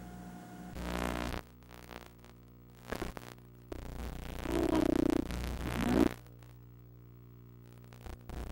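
Steady electrical hum with its overtones, from a videotape recorded without sound. Between about four and six seconds in there is a louder burst of noise.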